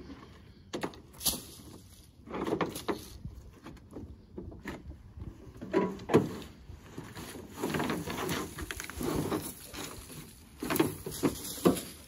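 Rustling and scraping of cut white pine boughs being pulled and moved around in a pickup truck bed, in irregular bursts with a few knocks.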